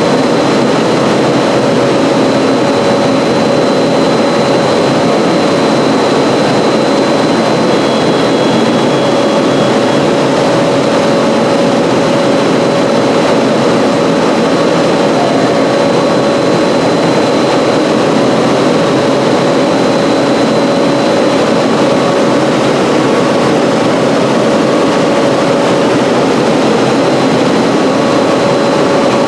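Steady, loud factory machinery noise: a constant mechanical drone with a steady mid-pitched whine and a faint high whine over it, unchanging throughout.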